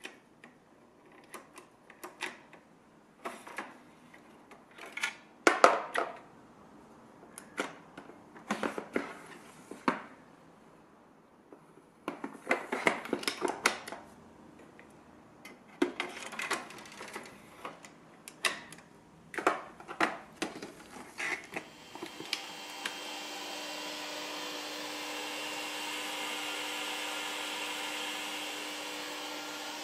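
Scattered metal clicks and knocks as Apple Xserve rack units and their drive modules are handled. About two-thirds of the way in, a steady rushing whir with several humming tones starts and swells slightly: the servers' cooling fans running at high speed.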